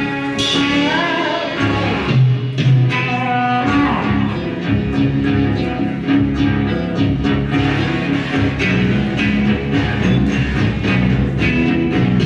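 Music with guitar and bass over a steady beat, with a few sliding notes in the first couple of seconds.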